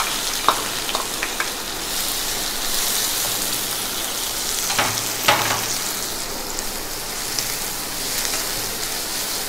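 Chopped onions sizzling in hot oil in a kadai as a wooden spatula stirs them. A few clacks of the spatula against the pan cut through the hiss, the loudest pair about five seconds in.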